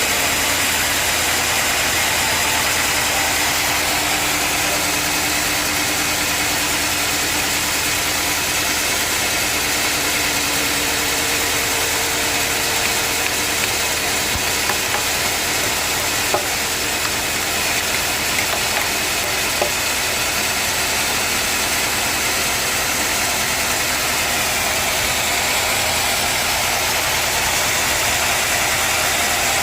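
Sawmill machinery running steadily, an engine-driven drone with hiss, with a couple of light clicks about halfway through.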